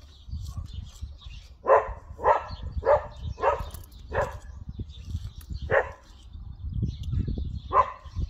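A dog barking, seven barks: five in a quick run about half a second apart, then two more spaced a couple of seconds apart.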